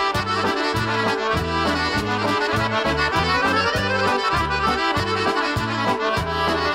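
Lively instrumental Serbian kolo folk music, with a fast melody over a steady, bouncing bass beat.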